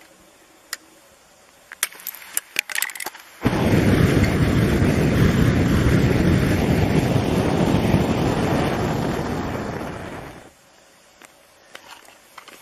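A few sharp taps of a knife point chipping at lake ice, then trapped methane bursting out through the hole with a sudden loud rushing noise that lasts about seven seconds and dies away.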